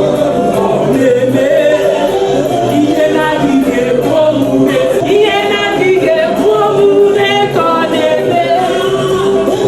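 Background music: a song with singing voices over accompaniment, steady throughout.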